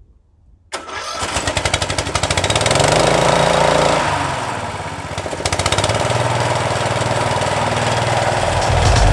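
Billy Goat 33-inch walk-behind mower's engine starting up about a second in, picking up speed over the next two seconds, then easing back and running steadily.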